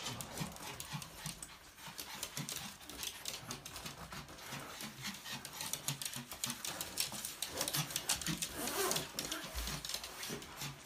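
A small dog vocalising, with many light clicks and taps.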